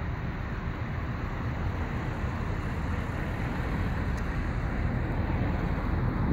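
A Douglas DC-3's two radial piston engines running at taxi power, a distant, steady rumble that grows slowly louder as the plane rolls along the runway. Wind buffets the microphone.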